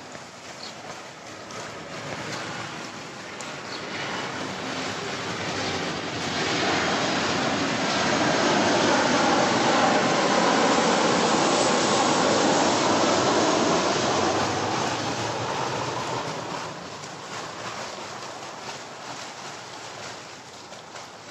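An aircraft passing low overhead: a rushing noise that swells to its loudest around the middle and then fades away, over the splashing of a swimmer's fin kicks and arm strokes.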